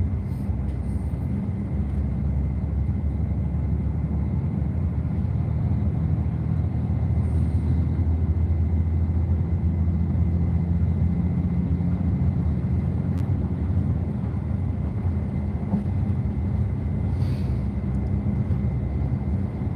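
Intercity bus engine and road noise heard inside the passenger cabin while under way: a steady low rumble with a faint engine hum that drifts slightly in pitch.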